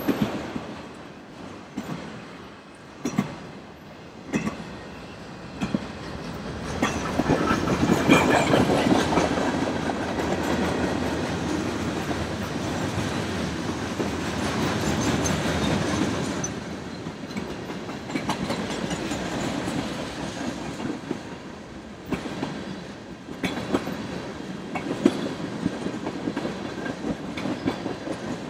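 Norfolk Southern freight train rolling past, its wheels clicking over rail joints under a steady rumble of the cars. The sound swells louder for several seconds partway through, then eases off again.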